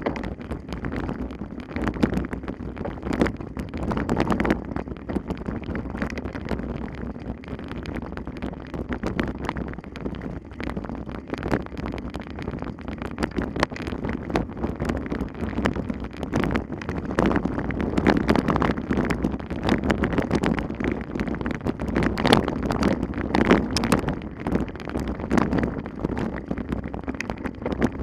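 Wind buffeting the microphone as a steady rumbling noise, with irregular clattering and knocks throughout.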